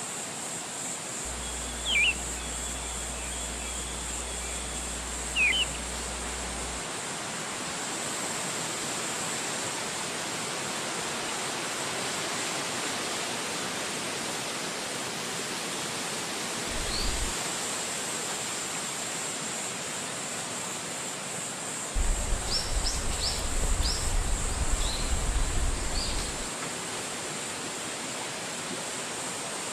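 Steady rushing of wind through forest trees with a constant high hiss, and short bird chirps: two early calls, one alone partway through, and a quick series of several about three quarters of the way in. Brief low rumbles come with the chirps and are the loudest moments.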